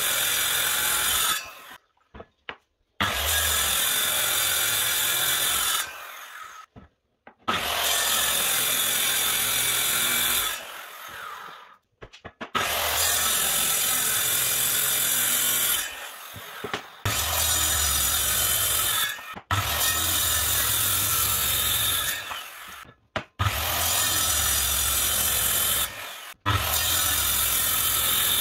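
Circular saw cutting MDF board in about eight separate runs of a few seconds each, with short gaps between them; some runs tail off as the saw winds down.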